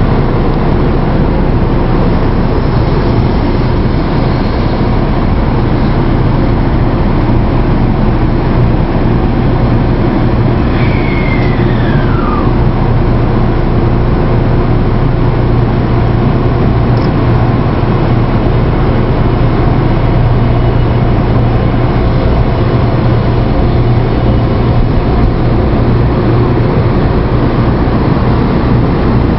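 300 series Shinkansen train moving slowly over a level crossing: a steady, loud rumble with a constant low hum. A short tone falls in pitch about eleven seconds in.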